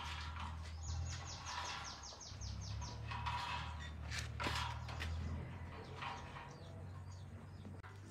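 Birds chirping, with a quick run of short falling high chirps about a second in, over a steady low hum.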